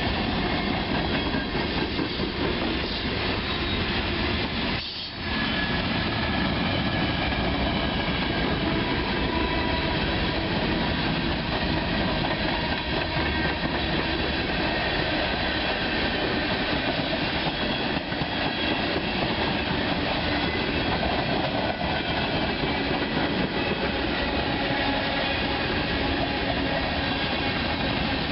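A train rolling past: steady wheel-on-rail noise with clickety-clack and faint high wheel-squeal tones. The sound briefly dips about five seconds in.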